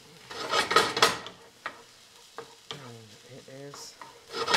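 Diced onion and celery frying in a stainless steel skillet and being stirred with a spatula: two loud stirring strokes, about half a second in and again near the end, over a faint steady sizzle.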